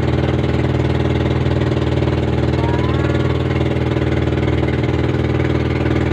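Passenger boat's engine running steadily at an even speed, a constant droning hum.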